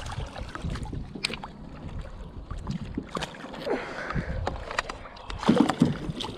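Water splashing and sloshing beside a plastic kayak as a hooked bass thrashes at the surface, with many small knocks and clicks of gear against the hull. Louder knocks and a splash come near the end as a landing net is dipped into the water.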